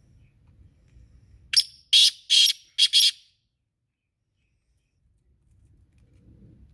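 Male black francolin calling: one loud, high-pitched phrase of five notes, a short note, two longer ones, then two quick short ones, starting about a second and a half in and lasting under two seconds.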